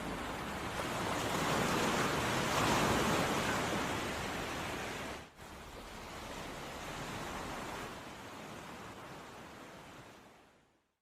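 Ocean surf washing in as a steady rushing noise that swells twice, breaking off sharply about five seconds in and fading away near the end.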